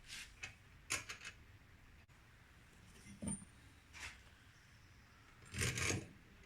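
Small clicks and knocks of candelabra parts being handled and fitted together, in scattered short clusters, the loudest group of knocks near the end.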